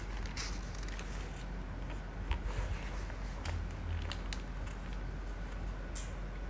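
Faint handling noise: scattered light clicks and crinkles as leather dance shoes are set down on their clear plastic wrapper on a tiled floor, over a low steady hum.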